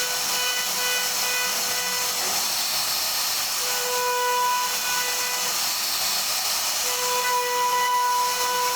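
CNC router spindle cutting wood, a steady hiss of cutting with a high whine that grows louder about four seconds in and again near the end.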